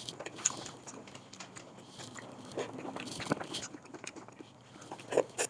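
A person eating close to the microphone: chewing, with irregular clicks and taps of chopsticks against a clay pot and bowl.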